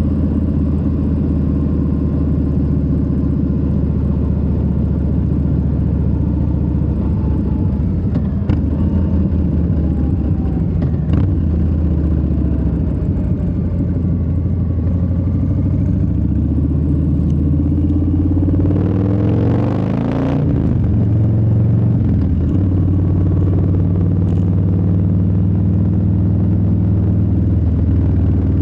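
Harley-Davidson Low Rider S Milwaukee-Eight 117 V-twin running steadily under way. About two-thirds of the way through, its note dips and climbs again, with a brief rush of noise, before it settles back to steady cruising.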